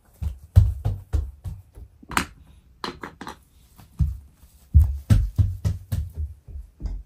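Bare feet thudding on a hardwood floor: a run of irregular steps, about two to three a second, with a few sharper clacks among them.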